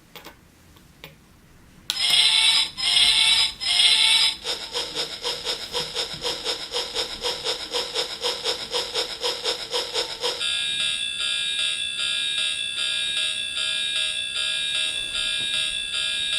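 Synthesized train sound effects from an electronic sound-effect kit. After a couple of faint clicks, three short loud blasts come about two seconds in. Then a fast, even electronic pulsing follows, changing about ten seconds in to a steady bell-like ringing that beats quickly.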